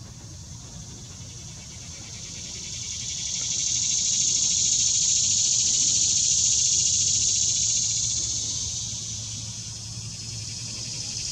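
Insects calling: a steady high-pitched buzz that swells a few seconds in, holds, eases near the end and then rises again.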